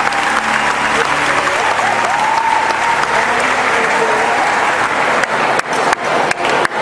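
Large crowd applauding steadily, with a few sharp clicks near the end.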